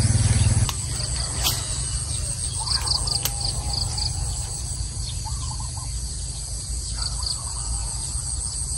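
Countryside ambience: insects trill steadily in a high pitch, with short chirping calls every second or two over a low rumble. A louder low hum cuts off under a second in.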